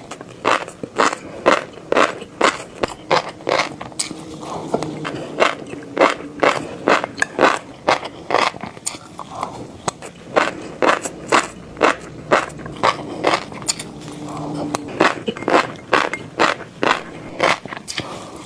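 Close-miked fish roe being bitten and chewed, the eggs crunching and popping in sharp crackly clicks, about two or three a second.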